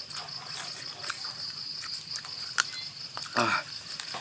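Steady high-pitched chirring of insects in the surrounding forest, gently pulsing. It is broken by a sharp click about two and a half seconds in and a short bit of a person's voice about three and a half seconds in.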